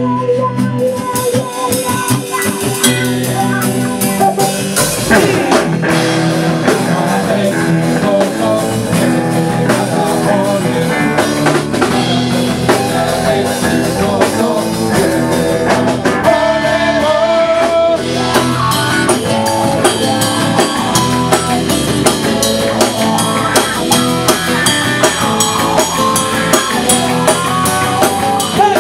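A live band playing a song: strummed acoustic guitar, electric guitar and a drum kit, with a man singing into a microphone.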